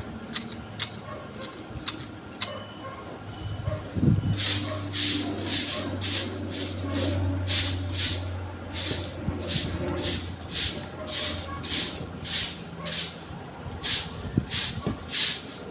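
Stiff stick broom (walis tingting) sweeping hedge clippings on concrete. Its swishing strokes come about two a second, starting about four seconds in. A low steady hum runs underneath through the first half.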